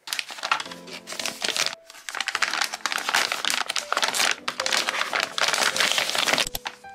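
Frosted plastic packaging bag crinkling and rustling in bursts as hands open it and slide out a tablet case, stopping shortly before the end.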